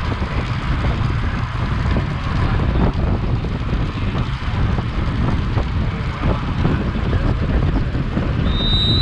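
Wind buffeting the microphone: a steady low rumble with a rough hiss above it. Near the end, a single high steady tone sounds for about a second.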